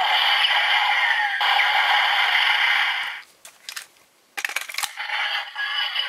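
Electronic sound effect from a Kamen Rider Build DX Pandora Panel toy as the Spider Full Bottle's panel lights up, stopping a little after three seconds. Then come a few sharp plastic clicks as the bottles are swapped, and a new electronic sound effect starts near the end as the refrigerator bottle lights up.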